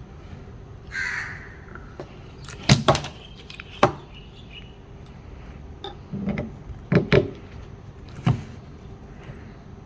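Sharp knocks and clicks as a new rear wiper arm is pushed and pressed onto its spindle, about six in all, in pairs around three and seven seconds in and one more near eight seconds.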